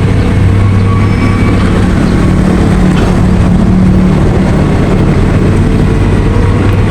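Heavy diesel engine running steadily, a low hum with an even mechanical rumble that does not rise or fall.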